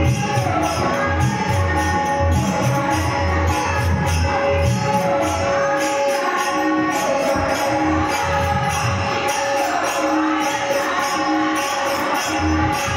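Instrumental passage of a Marathi devotional song: tabla beats under a steady jingling percussion rhythm, with sustained melodic tones held over it.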